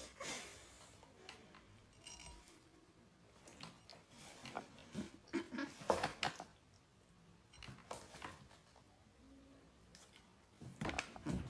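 Faint, scattered small clicks, rustles and mouth noises, then a few louder crisp crunches near the end as a piece of chebakia, a crunchy fried honey-and-sesame pastry, is bitten and chewed.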